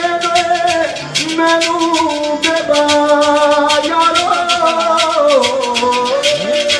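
Live Pothwari folk music: a melodic line of long held notes that step up and down, over a fast, steady jingling percussion beat.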